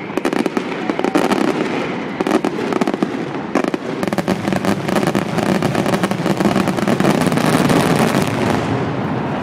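Fireworks going off in a dense, continuous barrage of rapid bangs and crackling, with no pauses between the reports.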